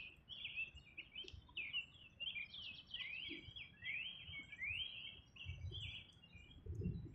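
Birds chirping in the background: a fast, steady run of short rising chirps, faint. A few soft low rumbles come near the end.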